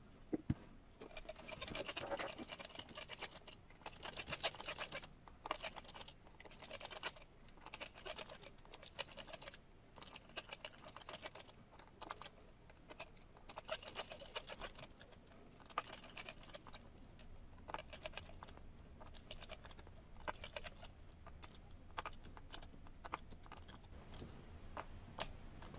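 Small hex driver turning the beadlock ring screws on a steel 1.9-inch RC crawler wheel: faint, irregular clicking and scratching in short bursts. One sharp click about half a second in.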